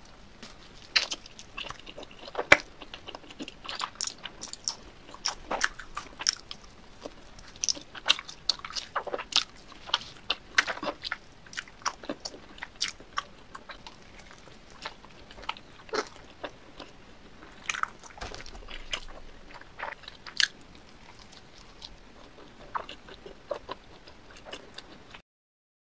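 Close-miked eating of thick cheese pizza: bites into the bread crust and wet, sticky chewing, full of sharp clicks and smacks. It cuts off abruptly near the end.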